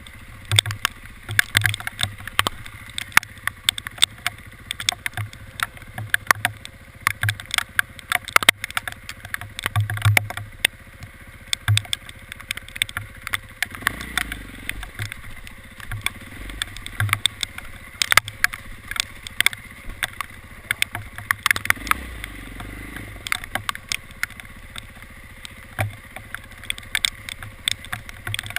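Hailstones striking in a dense, irregular patter of sharp clicks and taps over the steady rumble of a moving vehicle.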